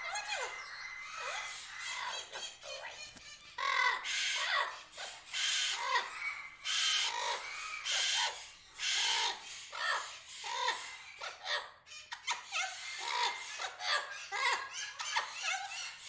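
Birds calling: a busy run of short chirps and whistled calls. Several harsh screeches come between about four and nine seconds in.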